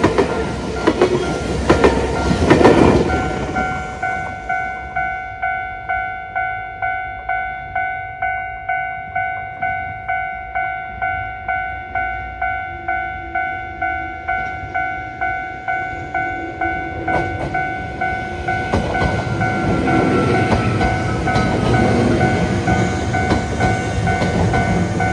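A train runs over the level crossing, its wheels clacking over the rail joints. Then the crossing's warning bell rings on its own in a steady rhythm of about two strikes a second. Later a train rumble with wheel clicks rises again under the bell.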